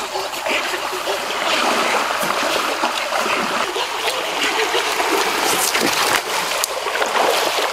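River water rushing and splashing as a swimmer moves through it, a steady wash of water noise.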